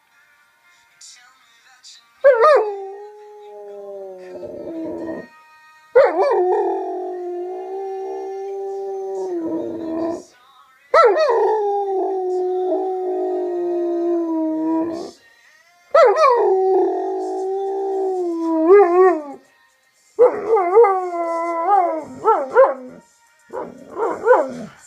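German Shepherd dog howling along to music: five long howls, each starting high, dropping quickly to a held note for a few seconds, then several short, broken yelping howls near the end.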